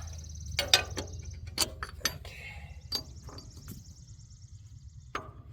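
Hand tools clinking and knocking on metal tractor wheel hardware as bolts are worked loose, several separate sharp knocks, over a steady low hum.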